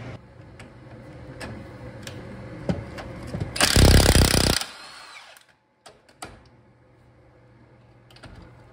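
Cordless impact wrench hammering for about a second on a rusty leaf-spring U-bolt nut, with a few light metal clicks before it.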